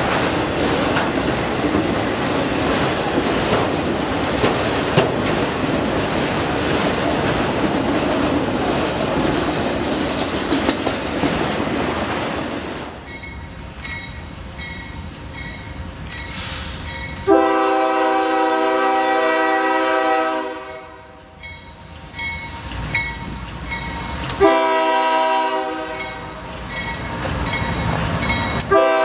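Freight cars rolling past close by, a steady rumble with wheel clatter, which ends about thirteen seconds in. Then an approaching CSX GE diesel locomotive sounds its air horn, several notes at once: a long blast past the halfway point, a shorter one later, and a third starting at the very end.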